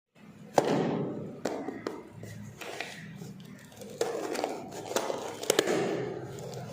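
Handling noise from unboxing a car tyre cleaning brush: a series of sharp clicks and knocks, with rustling and scraping in between.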